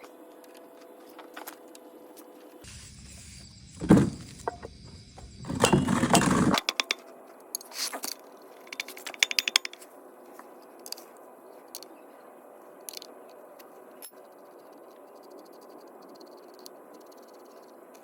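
Metal links of a motorcycle drive chain clinking and rattling as the chain is handled, loudest in a burst of jangling about four to six seconds in, then scattered clicks.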